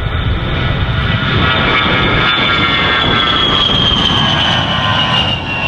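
A-10 Thunderbolt II's twin General Electric TF34 turbofans at takeoff as the jet lifts off and climbs away: a loud high whine that slides slowly down in pitch over a steady rumble.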